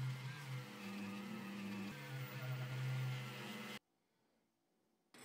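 Handheld rotary tool running with a buffing wheel against a brass casting, a steady motor whine that wavers in pitch. It stops abruptly about four seconds in.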